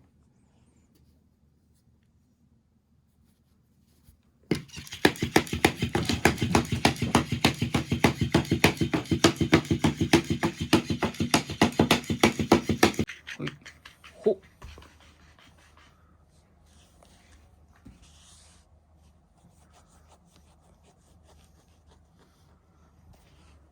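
Battery-powered toy raccoon running: a loud, rapid rattling buzz of its motor and moving body that starts about four seconds in, lasts about eight seconds and cuts off suddenly, followed by faint small knocks.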